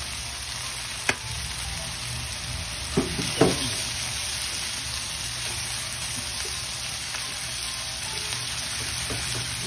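Seafood and mushrooms sizzling in garlic butter in a nonstick wok, with a steady hiss throughout. They are stirred with a wooden spatula, which knocks against the pan about a second in and twice around three seconds in.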